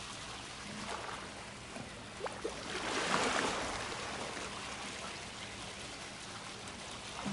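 Swimming pool water trickling and lapping steadily, with a louder splash about three seconds in as a swimmer moves through the water.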